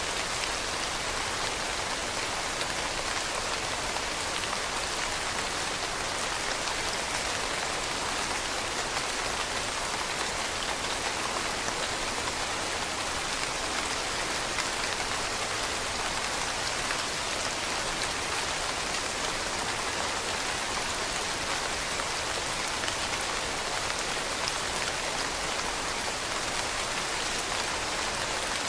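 Steady rain falling on leaves: an even hiss of many fine drop patters with no gaps or changes.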